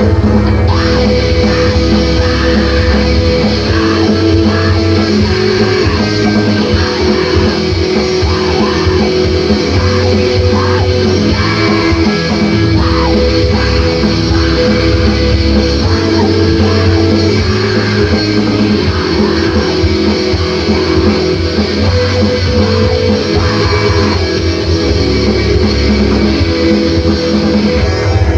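Loud, unbroken screamo band recording led by electric guitars, with a heavy low end.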